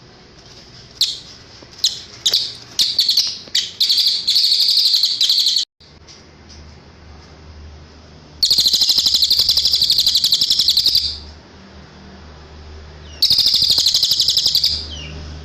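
Cililin songbird singing high, clear notes. Scattered short chirps speed up into a fast trill, which breaks off abruptly. Two long, rapid, rattling trills follow, the second shorter.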